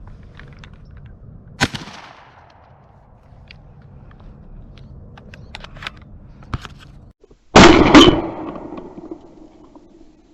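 12-gauge shotgun shots during a dove hunt. One sharp, quieter shot comes about a second and a half in. About seven and a half seconds in comes a much louder, close blast with a second peak right after it, followed by a ringing tail.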